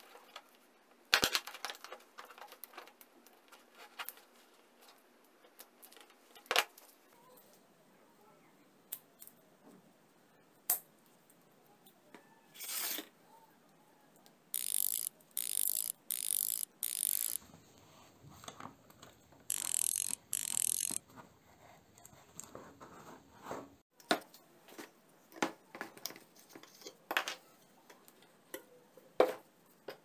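Small metal parts of a brass door hinge and its steel coil spring being handled: scattered sharp clicks and clinks, with a run of short scratchy rustles near the middle.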